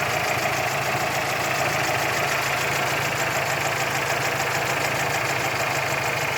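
GAZelle's UMZ-4216 four-cylinder petrol engine idling steadily with a dull knock from low at the rear of the engine: the sign of a crankshaft cracked at the fifth main journal and a loose flywheel.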